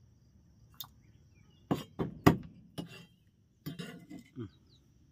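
Cleaver chopping minced meat on a wooden chopping block: about half a dozen sharp, irregular chops, clustered between about one and four seconds in.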